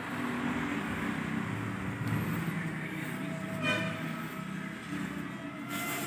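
Steady low rumble of a vehicle engine, with one short horn-like toot a little past halfway.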